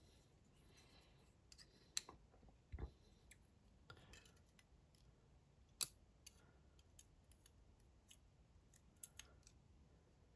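Faint, scattered clicks and taps of small metal lock parts being handled as a DOM IX Saturn dimple lock is taken apart. A few sharp clicks stand out about two and six seconds in, with a duller knock near three seconds and a quick pair of clicks near nine seconds.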